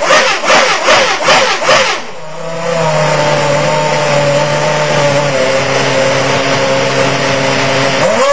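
Formula One car engine blipped in rapid throttle bursts, about two to three a second. About two seconds in the blipping stops and gives way to a steady, even drone with a hiss over it.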